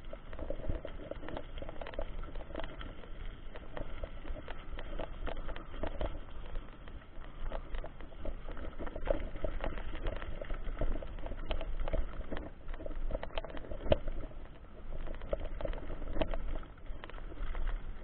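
Mountain bike rolling over a loose gravel road: the tyres crunch on the stones, with a dense run of small clicks and knocks from the bike rattling, over a low rumble.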